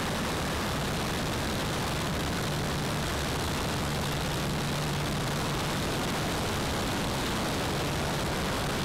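De Havilland Tiger Moth's Gipsy Major four-cylinder engine and propeller running steadily in flight, under a heavy rush of wind in the open cockpit. The low engine hum grows a little stronger in the middle.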